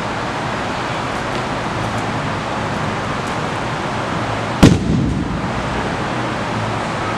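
A person thrown in a judo-style throw landing flat on the mat: one loud slap and thud a little past halfway, over a steady hiss of room noise.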